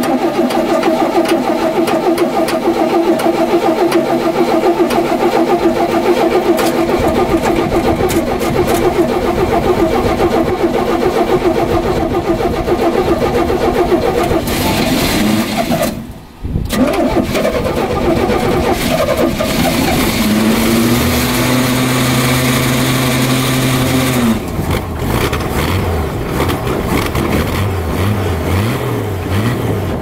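1968 Bombardier tracked snow plow's engine starting in the cold and running. Its sound dips out briefly about sixteen seconds in, then it carries on at a steadier, lower note.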